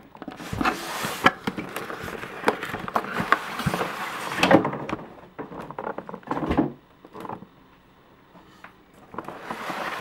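Cardboard box being handled and slid about on a table: scraping and rustling with scattered sharp knocks and clicks, a quiet pause of about two seconds, then more rustling near the end.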